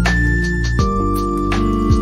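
Background music: held keyboard notes over a steady beat, the chord changing about a second in.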